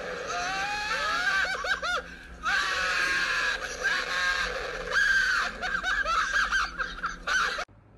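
A young man screaming and yelling in fright on a Sling Shot reverse-bungee ride, his voice wavering and sliding up and down in pitch, mixed with laughter. The sound cuts off abruptly near the end.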